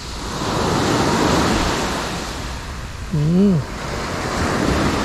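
Small waves breaking and washing up a gravelly shore: the surf swells about a second in and then eases off.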